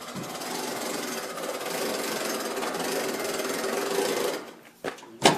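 Electric winch running under load for about four seconds, hauling a heavy car onto a trailer deck, then stopping. The car's brakes are thought to be dragging. A few sharp clicks follow near the end.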